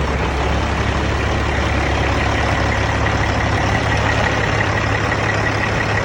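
Caterpillar C15 diesel engine in a Peterbilt truck idling steadily, with a thin high whine over the low engine note. It runs smoothly after a new set of six remanufactured injectors cured a no-start caused by contaminated fuel.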